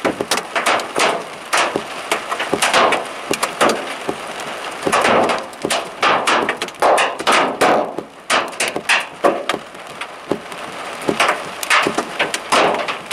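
Large hail pelting down: a dense, irregular clatter of sharp cracks and knocks over the steady hiss of heavy rain, coming in heavier and lighter spells.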